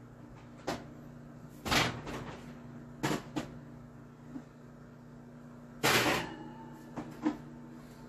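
Oven door and cookware clunking out of sight as a pan of sliced potatoes goes into the oven: about seven separate knocks and clunks, the loudest about six seconds in, over a steady low hum.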